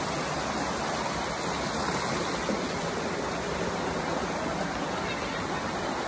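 Steady rush of water from a waterfall stream flowing over rocks.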